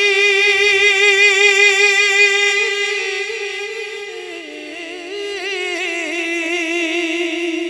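Man singing a naat unaccompanied: one long held note with a fast wavering ornament, stepping down to a lower held note about four seconds in.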